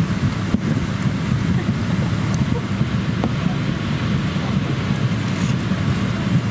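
Steady low rumble of aircraft cabin noise inside a Boeing 777-200ER, with a few faint clicks.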